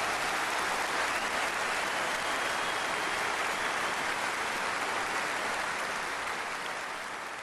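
Applause, a dense, even crowd clapping that slowly fades near the end.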